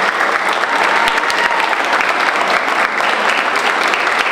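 Audience applauding: many people clapping together in a room, steady and sustained.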